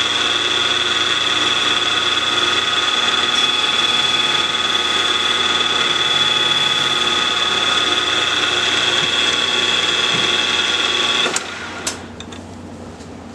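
PM-940 CNC mill spindle running with a steady high whine while milling 45-degree chamfers in UHMW plastic. The whine cuts off suddenly about eleven seconds in as the spindle stops.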